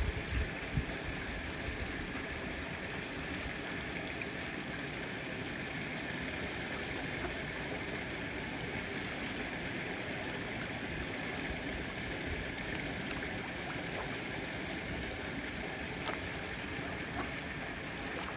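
Steady rush of moving water at a mallard pond, an even hiss with a few low bumps near the start and faint scattered ticks.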